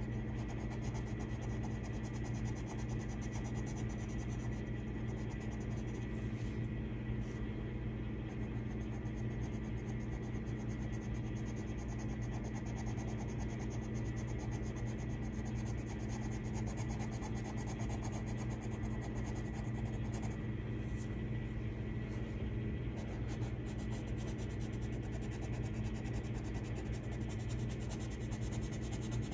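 A steady low hum with a faint high tone, under the soft scratching of a coloured pencil shading on paper.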